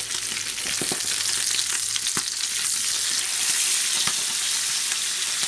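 Sea bass fillets sizzling steadily in hot butter in a frying pan. A few sharp knocks and scrapes come from a wooden spatula as the fillets are flipped over.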